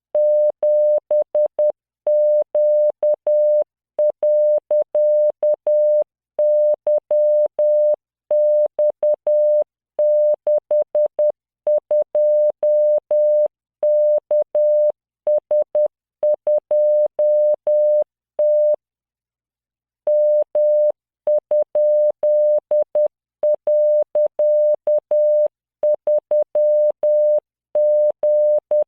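Software-generated Morse code: a 600 Hz tone keyed on and off at 10 words per minute, sending random characters as short dots and long dashes. There is a faint click at each on and off, and a pause of about a second and a half about two-thirds in.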